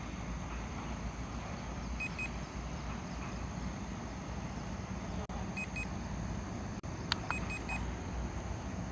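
Drone remote controller beeping: a short double beep about 2 seconds in, another about 5.5 seconds in, and three quick beeps near 7.5 seconds, over a steady low background rumble.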